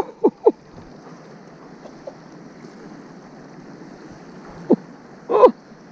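Steady hiss of wind and river water on the microphone, broken by a few short vocal sounds from the angler: two brief falling ones right at the start and another, louder one near the end.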